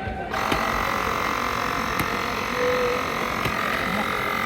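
Portable electric tyre inflator switched on about a third of a second in and running steadily as it pumps up a bicycle tyre, with a few light clicks.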